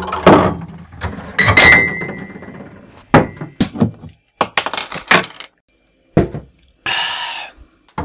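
Glass beer bottles clinking and clunking against each other and a crate: a run of sharp knocks and rattles, with a brief glassy ring about one and a half seconds in.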